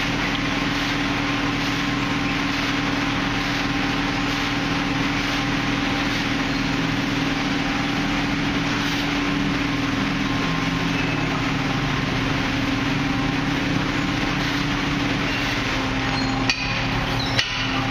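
Automatic car wash side brush spinning against a vehicle's body, its strips slapping rapidly among spraying water, over a steady motor hum. A couple of sharp knocks come near the end.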